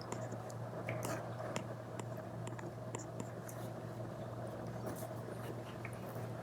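Apple Pencil Pro tip tapping and scratching on an iPad screen fitted with a paper-like screen protector, an irregular scatter of small ticks and strokes over a steady low hum.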